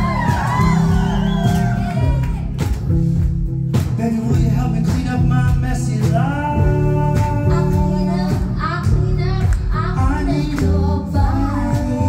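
Live band music with singing: a stepping bass line and sharp percussive hits under the voices, with singers holding long notes from about six seconds in.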